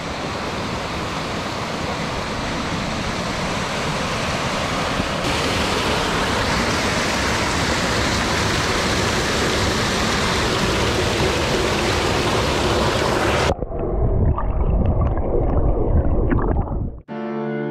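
A mountain creek rushing and splashing over boulders in a small waterfall, a steady rush that grows brighter about five seconds in. About thirteen seconds in the sound turns abruptly muffled and rumbling, heard from underwater among bubbles, and soft piano music begins just before the end.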